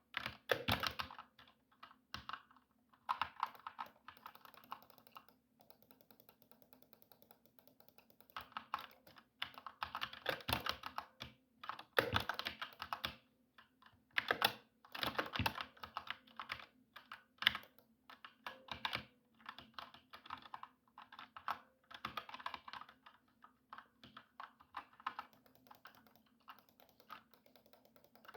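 Computer keyboard being typed on: quick runs of key clicks in bursts of a second or two, with short lulls between them.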